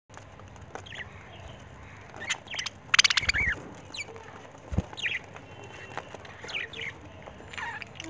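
Budgerigars in an aviary chirping, with short scattered chirps and little rising and falling calls. About three seconds in comes a brief, loud, rapid rattle close by, the loudest sound.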